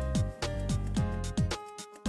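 Background music with a steady beat of low drum thumps about twice a second under held melody notes, thinning out briefly near the end.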